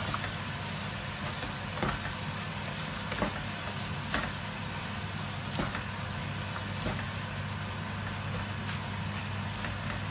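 Paneer and pea curry sizzling in a nonstick frying pan while a plastic spatula stirs it, scraping against the pan about six times. A steady low hum runs underneath.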